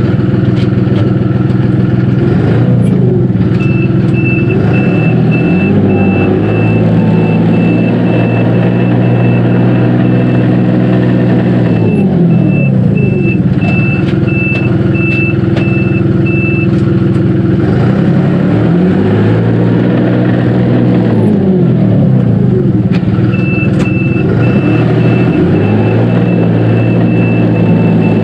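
Dongyang TX653 tractor's diesel engine running, its speed dropping and picking up again several times as the tractor is driven back and forth. A high reverse-warning beeper sounds about one and a half times a second in two spells, from about 4 to 17 seconds in and again near the end, marking reverse gear engaged.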